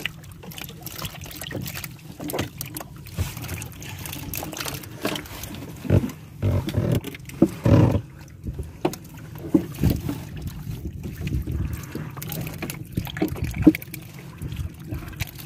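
A heap of live eeltail catfish squirming and slapping wetly against each other and the boat's hull, with irregular knocks and thumps that are busiest about six to eight seconds in.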